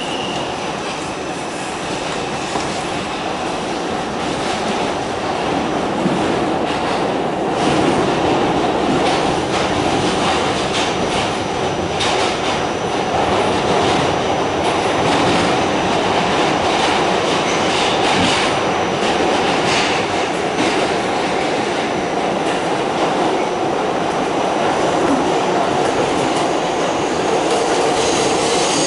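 Pullman-Standard R46 subway car running through a tunnel, heard from inside the car: a steady rumble of steel wheels on rail with scattered clicks at rail joints. It grows louder over the first several seconds as the train gathers speed out of the station, and a high wheel squeal starts near the end.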